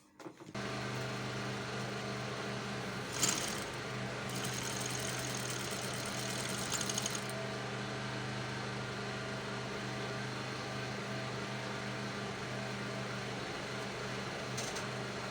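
Industrial sewing machine motor switched on and running with a steady hum. A click about three seconds in, then a few seconds of fast, high rattling.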